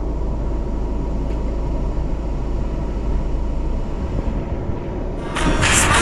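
Jeep Wrangler crawling slowly down a rocky trail, heard through the hood-mounted camera as a steady low rumble. Music comes in about five seconds in.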